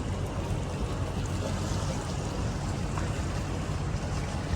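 Aboard a speedboat: the steady rumble of its engine mixed with the rush of water and wind.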